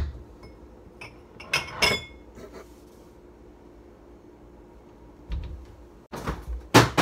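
Glass tumblers clinking as one is taken down from a kitchen cabinet: two short ringing clinks about a second and a half in. Near the end, a dull thump and then a few loud knocks.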